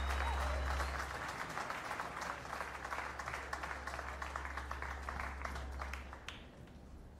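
Audience applauding, the clapping thinning out and dying away about a second before the end.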